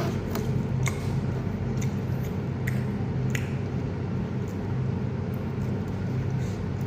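Eating sounds: a few sharp mouth and utensil clicks while chewing a fish curry, over a steady low hum like an idling engine.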